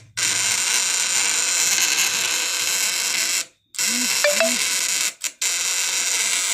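Home-built 12/24-volt SPS-type inverter, its hand-wound transformer running at full output off a 12-volt battery with a loud, harsh buzz. The buzz cuts out briefly about halfway through and twice more shortly after as the unit is switched or the load is broken.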